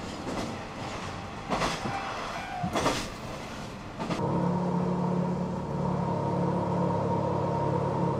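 Diesel railcar running along the track: a steady rumble of wheels on rail with a couple of sharp knocks. About four seconds in, the sound switches to a steady low engine hum with a thin higher whine.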